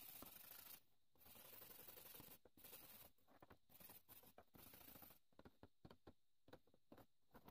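Faint wet scrubbing of a rusty saw blade under water with an abrasive pad, in stretches broken by short pauses. In the last couple of seconds it turns to scattered small clicks and drips as a wet brush is lifted out of the water.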